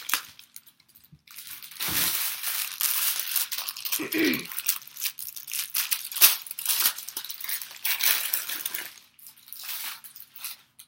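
Rustling and crinkling as human-hair extension bundles are handled and gathered together, with many small crackles. A brief low, falling sound comes about four seconds in.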